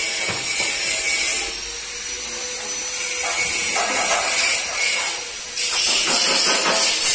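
Gas from a carbide gas-welding set hissing, coming and going in stretches.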